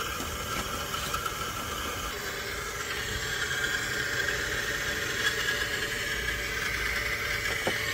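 A steady machine whir with a hiss, a little louder from about three seconds in.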